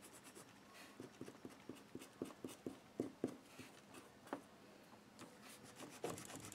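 Pencil eraser scrubbing along the edge of a card in faint, short, quick strokes, rubbing the glued paper napkin off the cardstock underneath.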